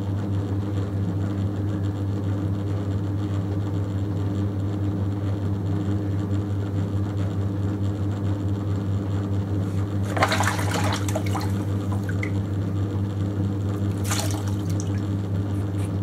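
Electric potter's wheel running with a steady low hum while wet clay turns under the potter's hands. About ten seconds in, and again about fourteen seconds in, there is a short wet swish of water and slip on the clay.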